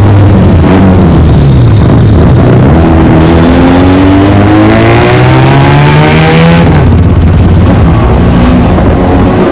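Motorcycle engine through a loud aftermarket exhaust, accelerating: the revs climb steadily for several seconds, drop suddenly about seven seconds in as at a gear change, then climb again.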